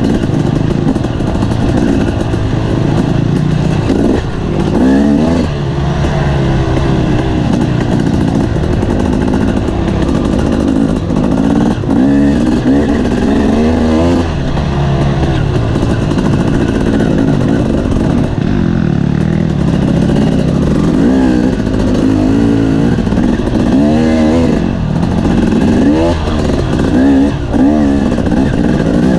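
Off-road motorcycle engine running hard on a trail ride, its pitch rising and falling again and again as the throttle is opened and closed.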